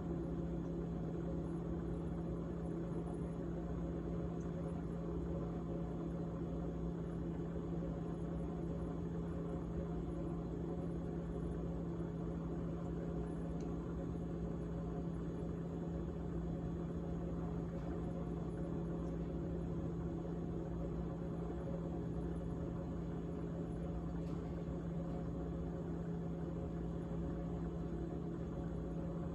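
A GE GTH18XCTZRBB refrigerator running with a steady, even buzzing hum, the noise its owner recorded as a rattling sound.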